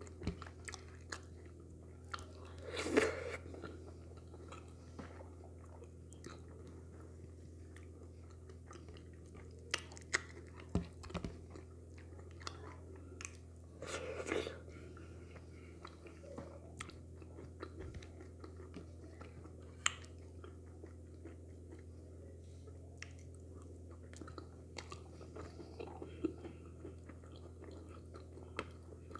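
Close-up mouth sounds of eating wheat fufu and okra soup by hand: chewing and lip smacks with many small clicks, and two longer, louder mouth sounds about 3 and 14 seconds in as mouthfuls go in.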